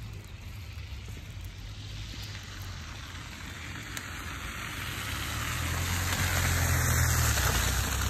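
A vehicle passing on a wet, slushy road: the hiss of its tyres and a low rumble swell over several seconds, are loudest near the end, then fall away.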